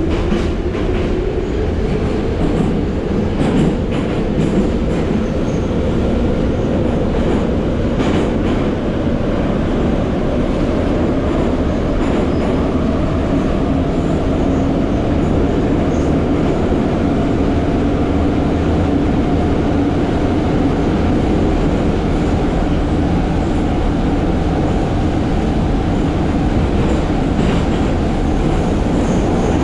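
Metro car running noise heard inside the car as the train pulls out and runs into the tunnel: the traction motors' whine rises in pitch over the first several seconds, then settles into a steady loud roar. Occasional clicks from the wheels sound through it.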